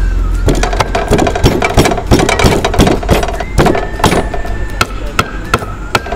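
Wooden pestle pounding garlic in a terracotta mortar: a quick run of knocks, about three to four a second, starting about half a second in.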